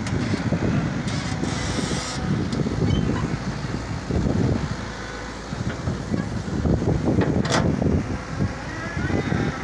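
Wind buffeting the microphone in a dust storm, over the running diesel engine of a Hitachi excavator as it digs and loads soil into a tractor trolley.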